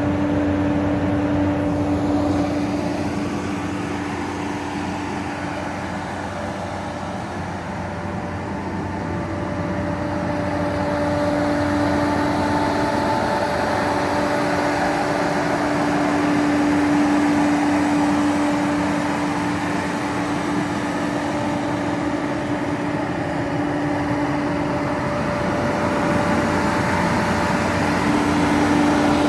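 Ravo 340 street sweeper running while parked: a steady mechanical hum with a constant whine that grows louder and softer by turns.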